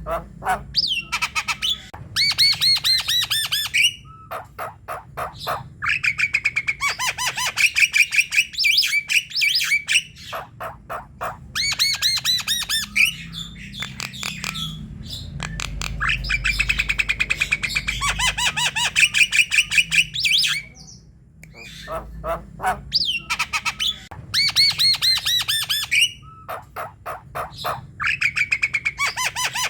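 Javan myna in full song: phrases of rapid repeated rattling notes mixed with gliding whistled notes, each phrase a few seconds long with short pauses between.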